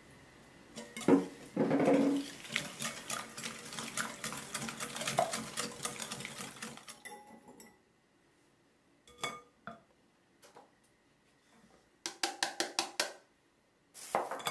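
Stainless wire balloon whisk beating an egg and sugar mixture in a glass bowl, its wires ticking rapidly against the glass for about six seconds. After a pause come a few separate knocks, then a quick run of about seven taps.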